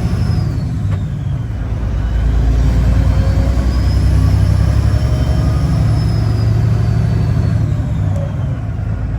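Kenworth W900 semi truck's diesel engine running, a steady drone that grows louder about two seconds in and drops back near the end, with a faint high whine rising and falling over it.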